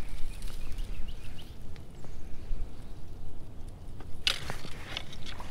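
Wading in shallow, brushy water: a low rumble with faint sloshing and twig ticks, then a louder burst of splashing about four seconds in.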